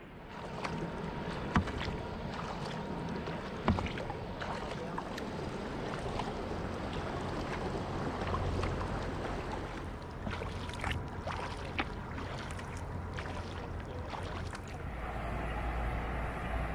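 Kayak paddling on calm water: paddle blades dipping and splashing, water dripping and trickling in many small irregular ticks. Two sharp knocks stand out in the first few seconds, and a steady low rumble takes over near the end.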